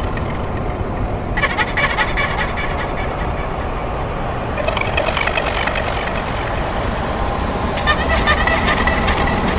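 Harsh, dense noise from an experimental sample-based track, with a crackling, gobbling texture that swells in about every three seconds.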